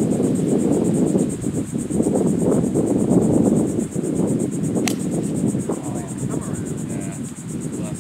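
Insects trilling steadily and high over wind buffeting the microphone outdoors. A single sharp crack of a golf club striking the ball about five seconds in.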